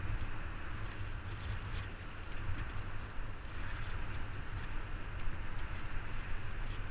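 Wind buffeting a helmet-mounted camera's microphone while cycling: a steady low rumble with an even hiss above it.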